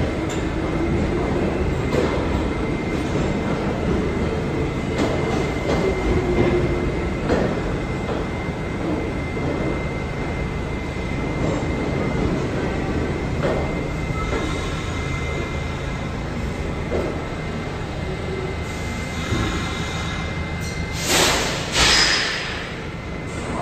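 R46 subway train moving slowly along the station platform, its wheels and running gear rumbling steadily under a thin, constant high whine, with a brief wheel squeal early on. Near the end come two short, loud hisses about a second apart.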